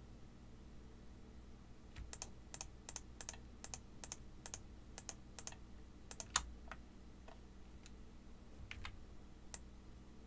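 Faint computer mouse clicks: a quick run of about ten clicks, roughly three a second, then a few scattered clicks, as faces are shift-clicked one after another to select them.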